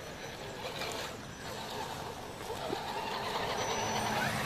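Electric motor and geartrain of a radio-controlled scale crawler truck whining as it climbs over a dirt mound, the sound growing louder in the second half.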